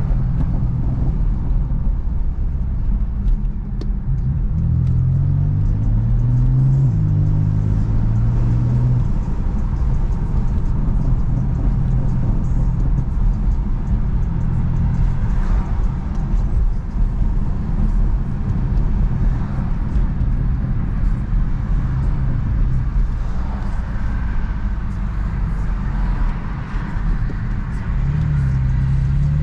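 BMW F80 M3's twin-turbo inline-six, with a VRSF single mid pipe and stock exhaust, heard from inside the cabin: a low steady drone at cruise with road noise. The pitch climbs under acceleration with a gear change about five to nine seconds in, and climbs again near the end.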